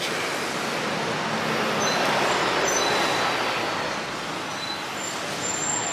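Street traffic noise: a steady wash of passing vehicles that swells about two to three seconds in and then eases off.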